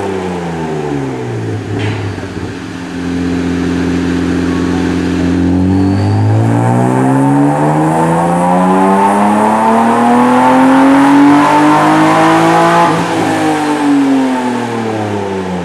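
Supercharged BMW E36 M3's straight-six engine on a chassis dyno. Revs fall at first and hold briefly, then climb steadily for about seven seconds in a dyno pull. About thirteen seconds in the throttle closes and the revs fall away.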